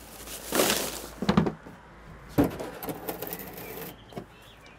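Plastic rubbish sack rustling as it is swung and dropped into a rubbish bin, followed by a few sharp knocks from the bin and its lid, the loudest about two and a half seconds in.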